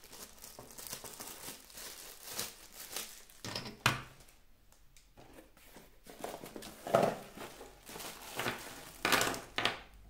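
Small clear plastic bags of camera mounts crinkling as they are handled and set on a table, with the cardboard accessory box being moved. A single sharp knock comes about four seconds in.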